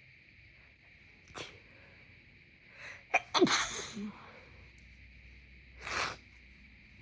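A congested person sneezing once, about three seconds in: a sharp, loud burst with a voiced tail that falls in pitch, after short breathy intakes. A shorter breath noise follows near the end, over a steady faint hiss.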